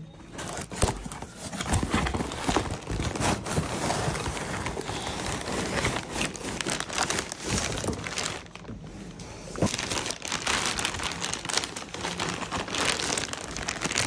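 Packaging being handled: a clear plastic polybag crinkling and rustling, with a cardboard shipping box being lifted and opened, as a wrapped backpack is taken out. The crackle is continuous, with a quieter spell about eight seconds in.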